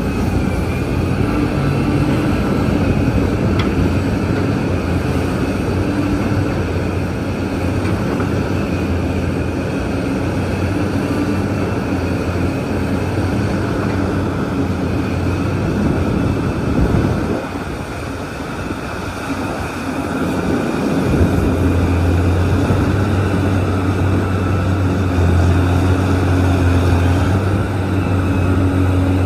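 Large Liebherr mining excavator's engine running steadily with a deep hum. It drops off for a few seconds past the middle, then comes back with a stronger low hum.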